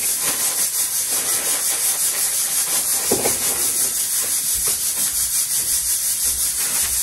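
Plastic bag of frozen peas crinkling as peas are tipped out into a bowl, over a loud, steady hiss.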